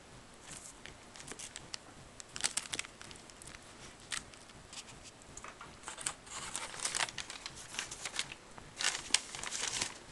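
Paper crinkling and rustling in irregular bursts as it is handled, loudest about two and a half seconds in and again near the end.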